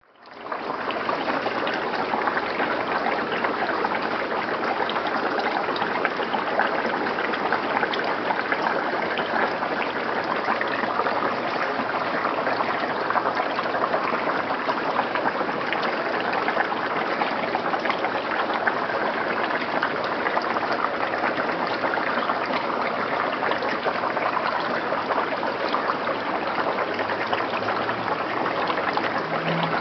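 Steady rushing and trickling of running water, constant in level, with no pauses.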